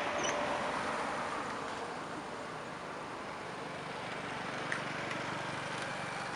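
Steady outdoor background noise with the faint low hum of a distant idling engine in the second half, a brief high chirp just after the start and a single soft click about three-quarters through.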